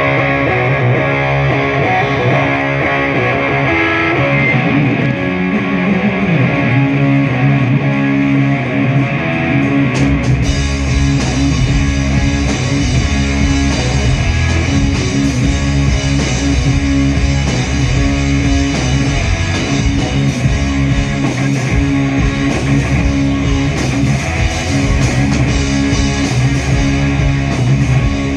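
Live rock band playing an instrumental intro: guitar alone at first, then about ten seconds in the bass and drums come in and the full band plays on.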